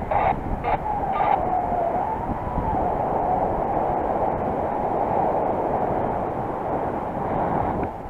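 Wind rushing over the microphone of a paraglider in flight, a steady loud rumble, with a faint wavering whistle through the middle.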